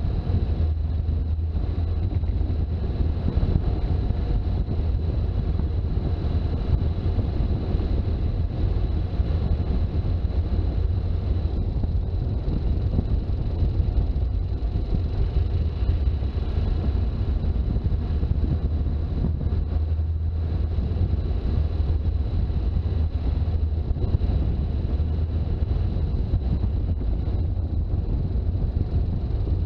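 Toyota HJ61 Land Cruiser under way: its turbo-diesel straight-six and the road noise make a steady low drone, with a thin steady high tone above it.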